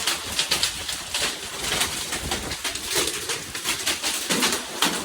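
Hailstones pelting down, a dense, irregular clatter of sharp taps and clicks, several a second, throughout.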